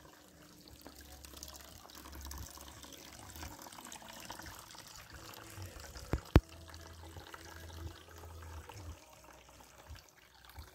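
Water trickling steadily into a small garden pond, with two sharp clicks close together about six seconds in.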